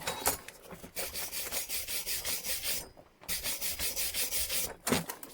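Rapid back-and-forth rubbing on an old metal hand tool, about five or six strokes a second in two runs with a short pause between, to clear the grime off its maker's stamp. A short knock near the end.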